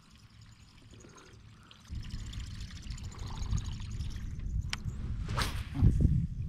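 Water trickling and splashing around a kayak, with a low, irregular rumble starting about two seconds in and a couple of sharp clicks.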